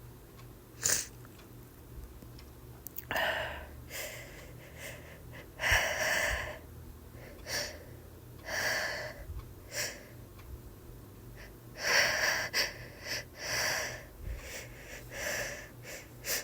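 A woman's sneeze buildup while she has a cold: a string of short, hitching breaths, about a dozen, spaced irregularly with some coming in quick clusters, without the sneeze breaking yet.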